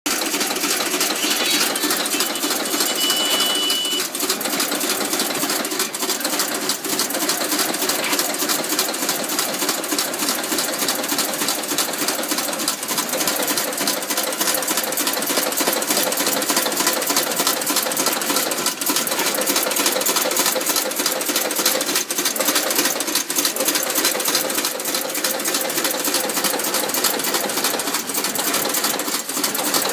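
Hai Lan automatic incense-stick making machine running at speed: a fast, steady mechanical clatter of rapid, evenly repeating clicks as it feeds bamboo sticks through and presses incense paste around them.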